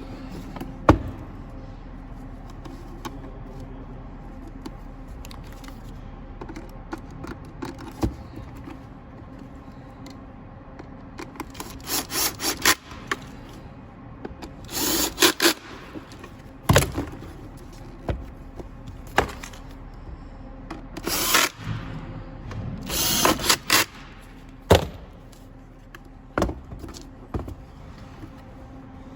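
Cordless drill-driver running in short bursts, driving screws into the blower motor's plastic housing, between scattered knocks and clicks of parts being handled.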